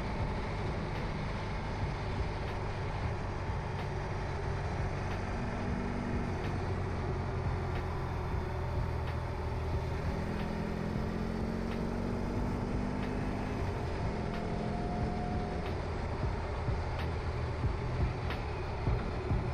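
BMW R 18 Transcontinental's 1802 cc boxer twin running under way, with road and wind noise. Its note rises gently for a few seconds about halfway through.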